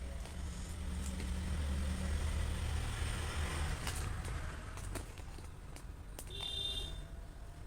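A road vehicle passing: a low rumble that swells over the first few seconds and then fades, with a brief high-pitched beep about six and a half seconds in and a few light clicks.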